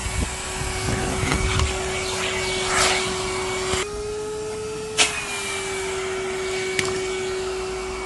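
Numatic tub vacuum cleaner running with a steady motor whine and rush of air. Its pitch steps up for about a second around the middle, then drops back after a sharp click.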